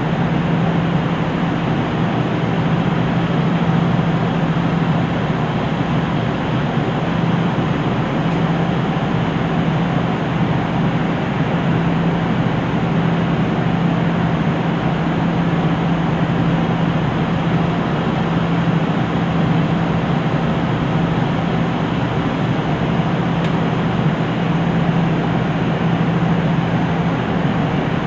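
KiHa 75 diesel railcar's engine idling while the train stands at a station platform, heard from inside the car: a steady, even hum with no change in pitch.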